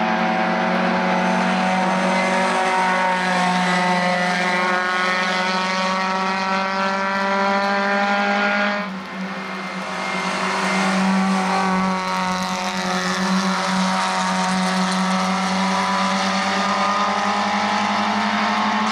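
1300 cc four-cylinder touring race cars running hard on a wet track, the engine note holding high revs with slow rises and falls in pitch over a hiss of tyre spray. The sound changes abruptly about halfway through to another car's engine.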